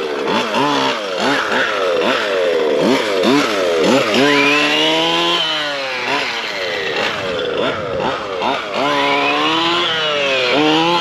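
ESP 30.5cc two-stroke engine of a Losi 5ive-T 2.0 RC truck, blipped up and down again and again, with two longer pulls about four and nine seconds in that rise and then fall away. The new engine is being run in on heat cycles at no more than half throttle.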